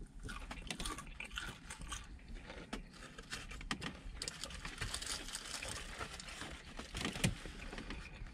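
Eating sounds: crunchy chewing of fried chicken strips and fries, with crinkling and rustling of paper food wrappers and a sauce cup. A sharper click comes about seven seconds in.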